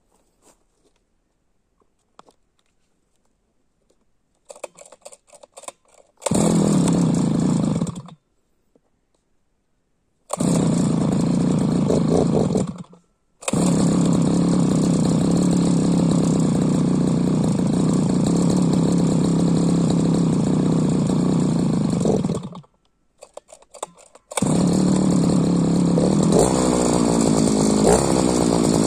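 Small two-stroke brush cutter engine, fitted with a 43 cc cylinder and the exhaust of the original 52 cc one, being cold-started by its pull cord. After a few rattling pulls it catches and stops more than once, then runs steadily. After more pulls it starts again and is revved up and down near the end.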